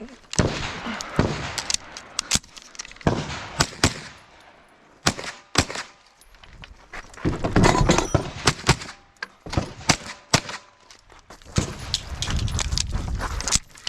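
Semi-automatic long-gun fire on a practical shooting stage: sharp shots come singly and in quick doubles and strings, with short pauses between groups.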